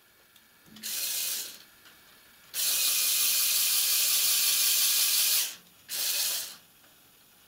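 Motor-driven winch of a Lego Technic RC truck whirring through its gears as it lets out its cable, in three runs: a short one about a second in, a long one of about three seconds, and another short one about six seconds in.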